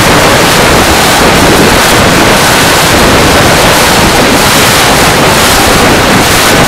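Airspeed wind rushing over the microphone of a camera carried aboard a flying model aircraft: a loud, steady rush of noise with a faint steady high tone underneath.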